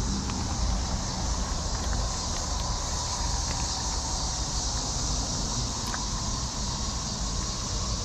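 Steady outdoor background noise: a low rumble under a continuous high hiss, with a few faint clicks scattered through.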